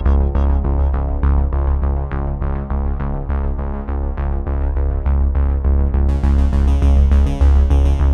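Electronic background music with synthesizer over a heavy, steady bass pulse; a bright high layer comes in about six seconds in.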